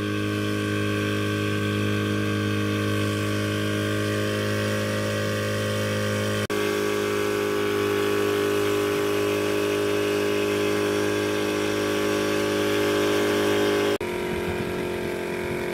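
Passenger motorboat's engine running steadily at cruising speed, a constant drone, with two sudden breaks about six and fourteen seconds in where its tone shifts slightly.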